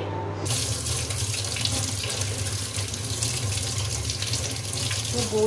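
Kitchen tap running into a stainless-steel sink, the stream splashing over pieces of fish being rinsed by hand. The water starts suddenly about half a second in and runs steadily after that.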